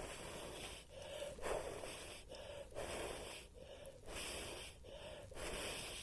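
A person blowing repeatedly on smouldering tinder to coax a fire into flame: a steady run of short, breathy puffs, about one and a half a second.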